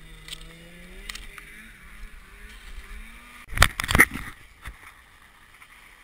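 A drawn-out, voice-like call that slowly rises in pitch for about three seconds, then a burst of loud bumps and rustling about three and a half to four seconds in.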